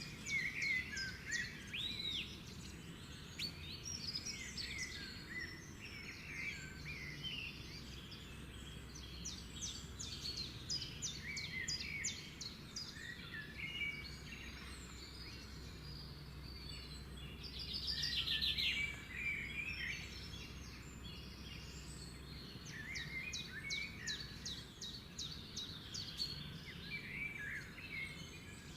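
Several birds chirping and calling, with short repeated chirps and trills and a louder trill about two-thirds of the way through, over a faint low steady hum.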